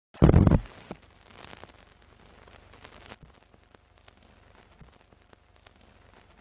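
Old-film countdown-leader sound effect: a loud low burst about a quarter second in, then faint film crackle with scattered clicks and pops.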